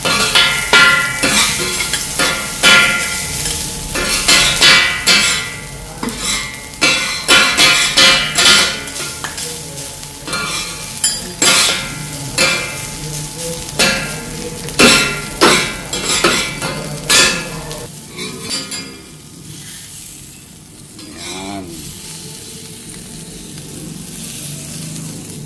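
Two metal spatulas scraping and clacking against a flat steel griddle as rice is turned and chopped, over a steady sizzle of frying. The clacks stop about seventeen seconds in, leaving a quieter sizzle of smoked fish frying on the griddle.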